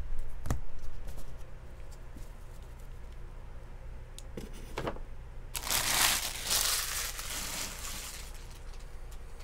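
Baseball cards tapped down onto a stack a few times, then a wrapper crinkling for about two and a half seconds.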